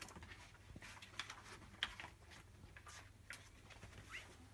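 Faint, scattered rustles and small taps of a picture book's paper pages being handled and turned.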